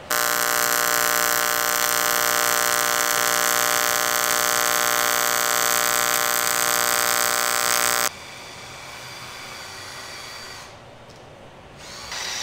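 AC TIG welding arc buzzing steadily on cast aluminum, run at higher amperage with a thicker filler rod, for about eight seconds before it cuts off suddenly. A much fainter hum and hiss carries on afterwards.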